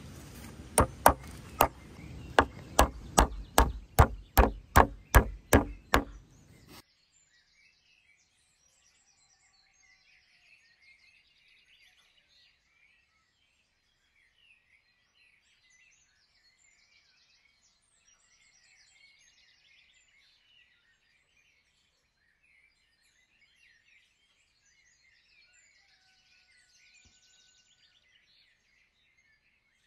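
Hammer blows, about fifteen in quick succession, loud and sharp, stopping abruptly about seven seconds in. After that, only very faint chirping of small birds.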